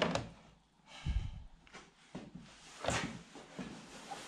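A few faint knocks and clicks of handling, with a low murmur of room sound between them.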